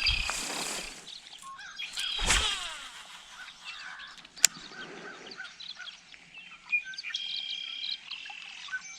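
Songbirds chirping and singing in short repeated phrases, with a louder whoosh about two seconds in and a single sharp click about halfway through.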